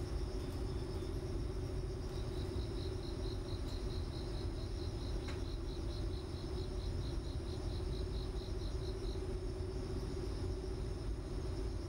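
Crickets chirping: a steady high pulsing chirp, joined by a second chirp at about five pulses a second from about two seconds in until about nine seconds in. Both sound over a steady low hum.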